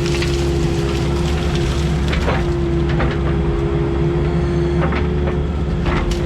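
Excavator engine running under load with a steady hydraulic whine, while brush and branches crack and snap a handful of times as they are crushed.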